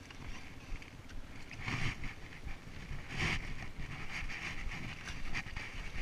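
Wind buffeting a helmet-mounted camera's microphone, a rumbling rush with two louder gusts about two and three seconds in.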